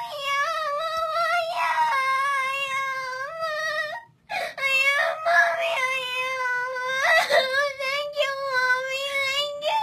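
A young girl crying hard for joy at being given a kitten: two long, high-pitched wails, with a brief catch of breath between them about four seconds in.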